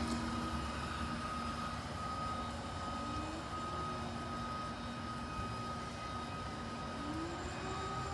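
Cleaning machine's motor running steadily, with a constant whine.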